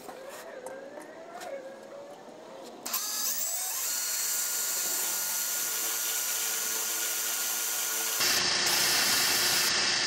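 Cordless drill with an 11/64 bit drilling a hole through the catalytic converter security shield under a Prius for a security screw. The drill starts about three seconds in with a rising whine as it spins up, runs at a steady whine, and a little past eight seconds turns louder and harsher as the bit cuts into the metal.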